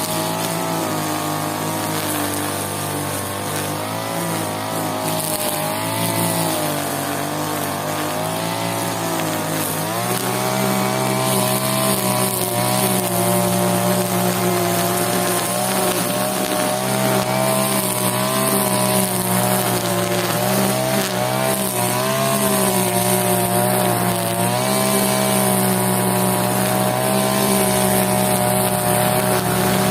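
Brush cutter engine running hard with a plastic trimmer line spinning, its pitch wavering up and down as the line cuts through grass. It gets a little louder about ten seconds in.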